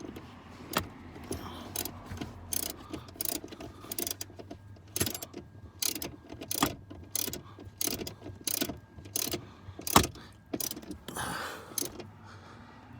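Hand ratchet wrench clicking in short back-and-forth strokes, about two clicks a second, while tightening a fastener on a car battery mount. There is a sharper knock about ten seconds in, then a brief scrape.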